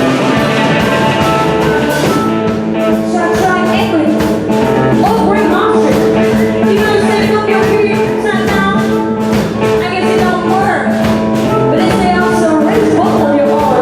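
Blues-rock band playing a boogie live: electric guitar and a drum kit keeping a steady beat.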